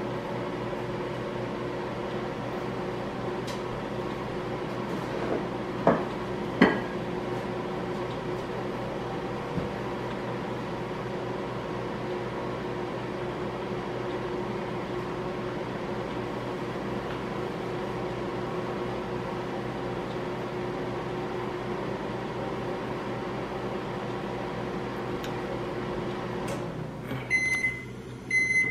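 Microwave oven running with a steady hum while it heats a dish of honey. Two short clicks come about six seconds in. Near the end the hum stops and the microwave beeps to signal that the 30-second cycle is done.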